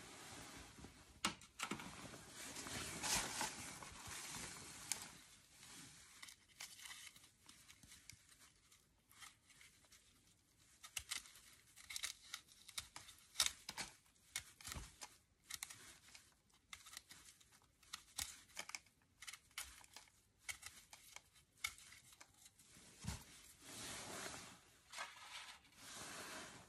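Dry, papery outer skin of an amaryllis bulb being scraped and peeled off with a kitchen knife: crackly tearing and crinkling, with many short scrapes and clicks.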